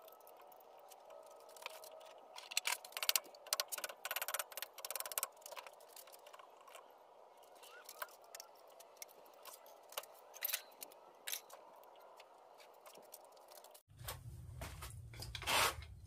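Metal parts and hand tools clinking, knocking and scraping against an air-cooled VW engine as it is pried apart at the cylinders, in irregular bursts of sharp clicks. About fourteen seconds in a low steady hum comes in, with one louder scrape near the end.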